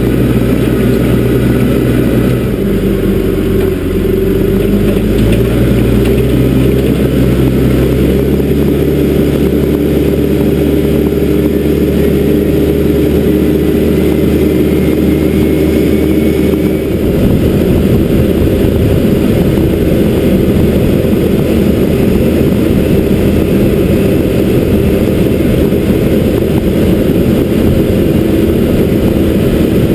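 John Deere backhoe loader's diesel engine running steadily as the machine drives along the road. The engine note shifts a couple of times early on and turns rougher a little past halfway.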